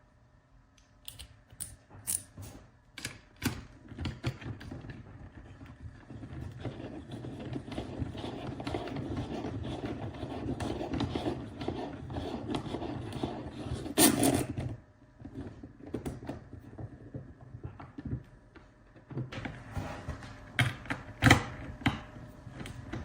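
Drone parts being handled during assembly: scattered sharp clicks and knocks, a stretch of rubbing and scraping in the middle, and a louder knock about fourteen seconds in.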